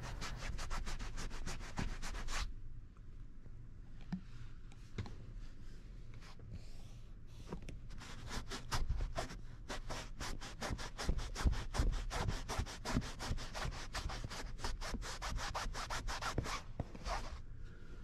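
Microfiber towel rubbing and twisting against a car's fabric headliner to work in dry upholstery foam, in a rapid run of short scrubbing strokes. The strokes pause briefly a few seconds in and stop shortly before the end.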